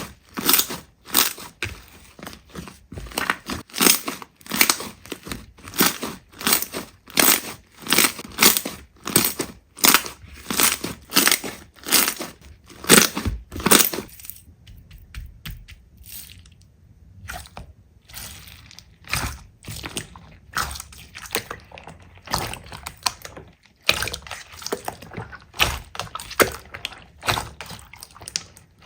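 Slime being pressed and worked by hand, making a quick run of sticky clicks and crackles, about two or three a second, thinning out to a few soft ones for a few seconds in the middle.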